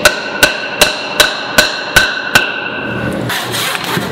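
A hardwood wedge being driven into the eye of an axe head with seven quick, even blows, each with a brief metallic ring. About three seconds in, a handsaw starts rasping through the wedge's protruding end.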